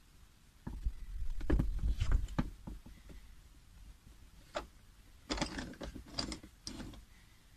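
Handling noise from stacked OSB target boards: a run of knocks and rattles about a second in, a single click, then another cluster of knocks and clatter around five to six seconds in.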